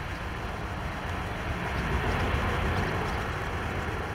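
Lufthansa Airbus A319 jet engines rumbling as the airliner rolls out along the runway after touchdown, a steady roar that swells a little midway. Wind buffets the microphone.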